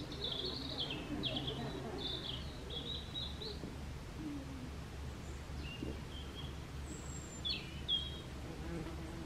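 Small songbird singing: a quick run of short high chirps and warbled phrases for the first few seconds, then a few scattered notes, over a steady low outdoor background hum.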